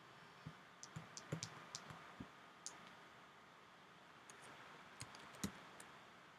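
Faint, scattered clicks of computer keys: a quick run of them in the first three seconds and a few more about five seconds in.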